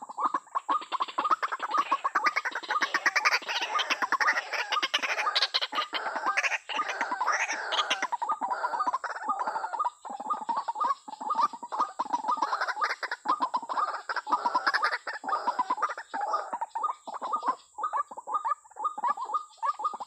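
White-breasted waterhens calling: a dense run of rapidly repeated croaking notes, busiest and loudest over the first half.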